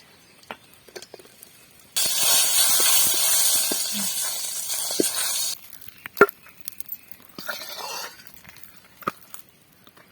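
Hot ghee sizzling in a pan as cardamom goes in with the fried cashews: a steady hiss of about three and a half seconds that starts and cuts off sharply. A few light clinks of a utensil follow.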